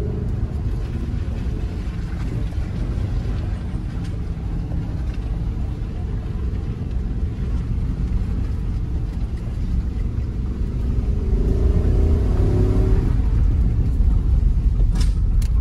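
A 4WD's V8 engine and tyres heard from inside the cabin, driving slowly along a rough, muddy dirt track. About eleven seconds in the engine revs rise and it gets louder as the vehicle climbs. There is a short sharp click near the end.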